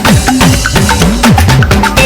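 Upbeat music with busy drums and percussion over a bass line that slides up and down.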